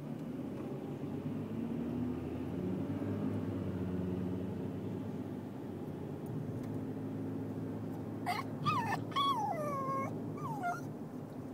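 Dog whining in a run of about four high cries that rise and fall in pitch, starting a few seconds before the end, over the low steady rumble of a moving car's cabin.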